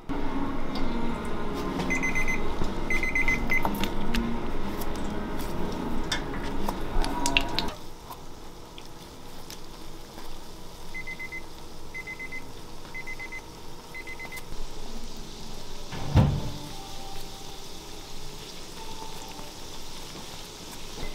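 Donuts deep-frying in oil, a steady sizzle with fine crackling. An electronic beeper sounds short high beeps about once a second, twice in the first few seconds and again in a run of four near the middle. A single dull thump comes about sixteen seconds in.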